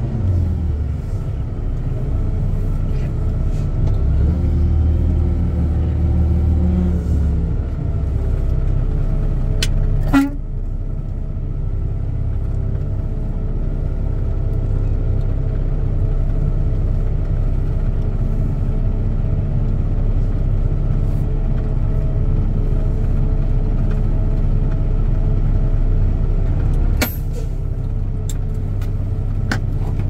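Heavy truck's diesel engine running steadily, heard from inside the cab as it rolls slowly, its note shifting over the first several seconds. A sharp click sounds about ten seconds in and again near the end, where the engine note drops.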